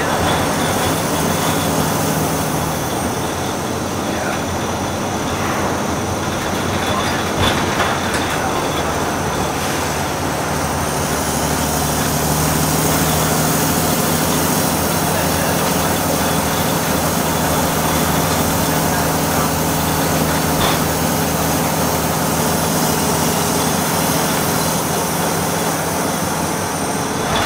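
Volvo B6BLE single-deck bus heard from inside the passenger saloon while under way: a steady diesel engine hum with road and tyre noise. The engine note grows stronger about halfway through, and there are a couple of brief rattles.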